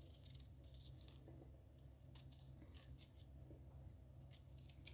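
Faint scraping and light scattered clicks of fresh ginger root being peeled, over a low steady hum.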